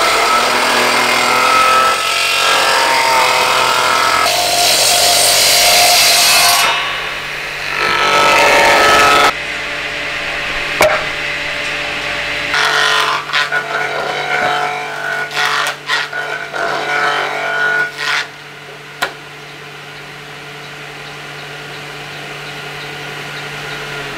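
Electric bench planer (jointer) cutting hardwood boards: a loud, dense whirring rasp with a whine while a board is pushed across the blades. Past the middle the motor runs on with a steady hum, broken by a string of short cuts and knocks, then keeps running unloaded.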